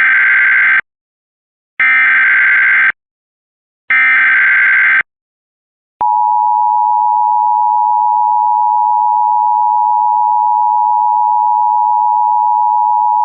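Emergency Alert System SAME header: three warbling digital data bursts of about a second each, a second apart. About six seconds in, a steady, loud attention tone starts and holds unbroken, announcing the alert message that follows.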